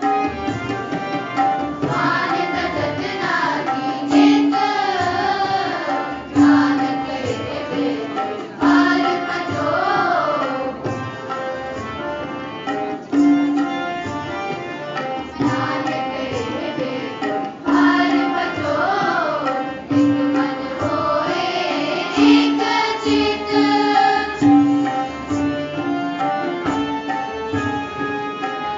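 Gurbani kirtan: singing of a Sikh hymn in phrases that rise and fall, over harmonium and a steady tabla rhythm.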